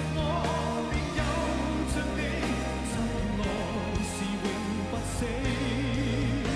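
Live pop band playing a slow song, with drums, cymbal strokes and a steady low bass; from about halfway through a man sings a long held line with vibrato over the band.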